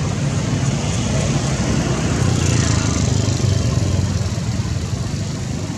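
Steady, loud background rumble, heaviest low in pitch, with a hiss above it and no distinct events.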